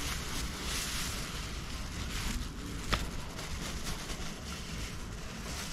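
Crinkling and rustling of a thin food-wrapping sheet as it is unfolded and a portion of devilled chicken is tipped out of it onto rice, with one sharp click about three seconds in.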